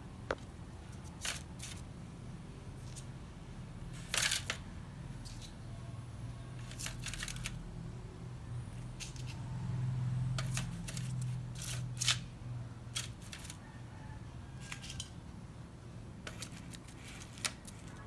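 Irregular sharp clicks and light crackles of a thin clear plastic clamshell container as cupcakes in paper liners are set down into it one by one. A low hum swells and fades around the middle.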